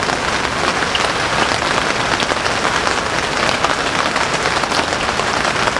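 Steady rain falling on the fabric of a camping shelter and its propped-up door panel overhead, many small drop ticks within an even patter.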